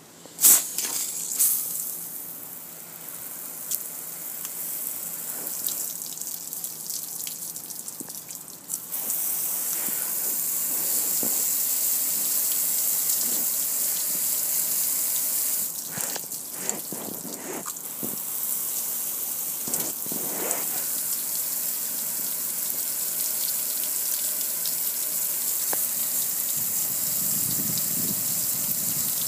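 A spray of water drumming on a metal gas grill and splashing onto concrete, a steady hiss that gets much louder about nine seconds in. A sharp click about half a second in, and a few short knocks midway.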